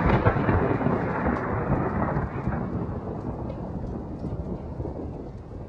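A low, dense noise without any tune or voice, fading away slowly over several seconds.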